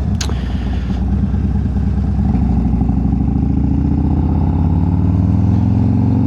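Harley-Davidson bagger's V-twin engine running under way, picked up by a microphone inside the rider's helmet chin guard. Its pitch rises gently through the second half as the bike accelerates, with one short click just after the start.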